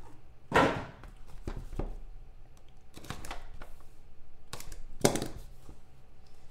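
Cardboard trading-card box being handled and cut open with a box cutter: a series of short scrapes and knocks, the loudest about half a second in and around five seconds in.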